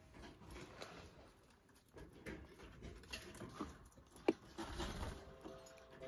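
Faint scattered taps and scratches, with one sharp click a little past four seconds in.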